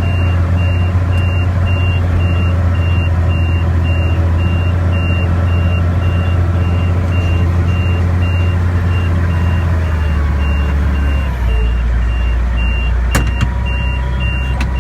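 Case 5140 tractor's six-cylinder diesel running steadily under load while baling, its note dropping lower about ten seconds in. Over it, a steady electronic beep repeats about three times a second, with a single sharp click near the end.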